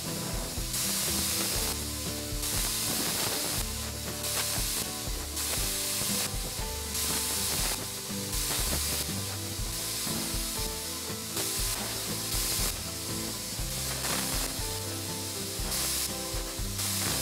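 Background music: a melodic line of held notes over a bass, with a hissing percussion that pulses in a steady rhythm.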